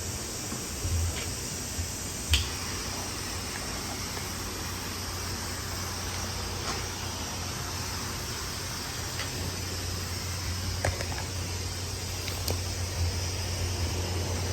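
Steady hiss with a low hum underneath, broken by a few light clicks and knocks, the sharpest about two seconds in.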